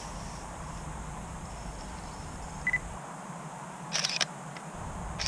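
Nikon D3200 DSLR taking pictures: a short beep, then a little over a second later the mirror and shutter clack twice in quick succession, and another shutter release starts right at the end.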